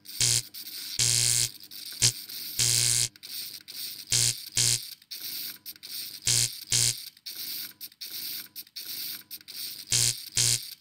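Stuttering bursts of electronic noise with a low hum beneath them, cutting in and out irregularly, some brief and some about half a second long, like a glitch-style sound effect.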